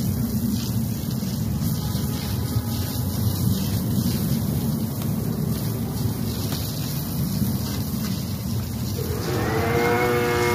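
Wind rumbling on the microphone, with a steady hiss above it. About nine seconds in, a steady pitched hum with several overtones starts, rising briefly in pitch and then holding.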